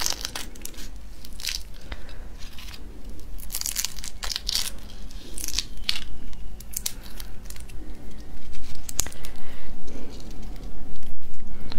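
Raw red shrimp being peeled by hand, close up: shells and heads crackling, tearing and crunching off in quick bursts, getting louder and denser in the last few seconds.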